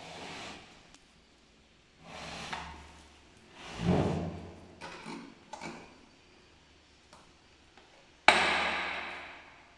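Parts of a Kärcher WD3 wet-and-dry vacuum cleaner being handled: a few knocks and rustles and some small clicks, then one sharp, loud clack near the end that rings and fades away.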